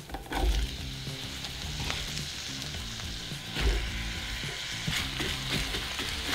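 Sliced white onion dropped into hot melted butter in a stainless-steel skillet, sizzling steadily as it starts to fry, then stirred with a wooden spoon near the end.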